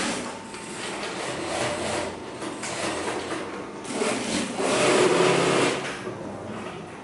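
JUKI industrial lockstitch sewing machine stitching in short runs, the loudest run starting about four seconds in and lasting close to two seconds.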